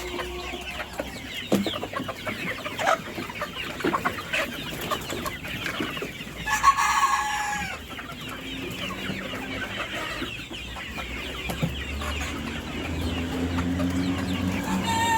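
A flock of desi chickens clucking and calling, with many short calls throughout and one rooster crow about seven seconds in. A low hum builds near the end.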